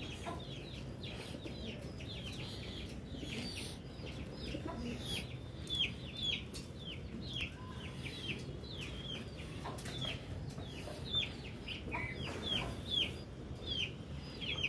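Small birds peeping steadily: short, high, downward-slurred notes, two or three a second, over a low background hum.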